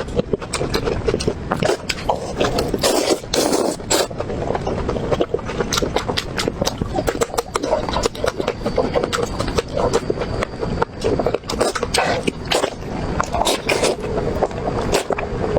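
Close-miked eating of braised pig's trotter: continuous wet chewing and lip-smacking, full of quick sharp clicks and crackles.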